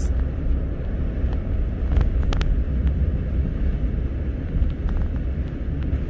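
Vehicle engine running with a steady low drone, heard from inside the cab while driving slowly through snow. A few faint short clicks come about two seconds in.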